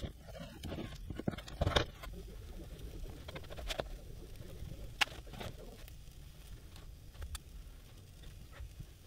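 Faint scratchy rubbing of a heated edge creaser drawn along the waxed edge of vegetable-tanned leather, with a few light clicks and knocks as the leather and tool are handled.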